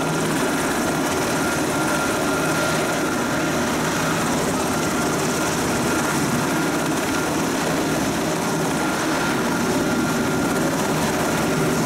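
Coast Guard rescue helicopter running steadily, a continuous rotor and engine drone.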